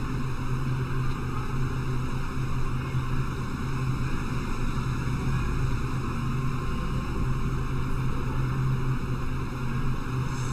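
Steady background hiss with a low, even hum; nothing else happens.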